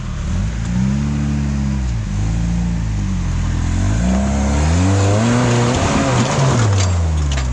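Suzuki Samurai rock buggy's engine revving up and falling back again and again, about five or six swells, as it works up a steep rock climb.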